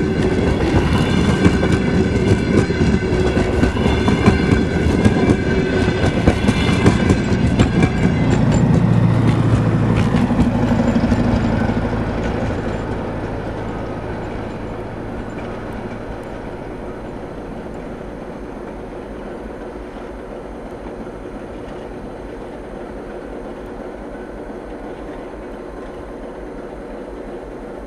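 DR1A diesel multiple unit passing close: wheels clacking over rail joints with a high ringing from the running gear. About eight seconds in, the low drone of the end power car's diesel engine swells, then the sound fades to a distant rumble as the train pulls away.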